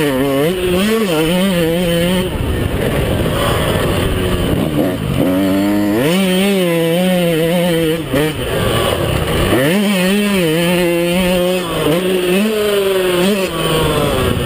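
Yamaha YZ125 two-stroke motocross engine ridden hard, heard from on board: its pitch climbs under throttle, holds, then drops sharply when the throttle is shut, several times over.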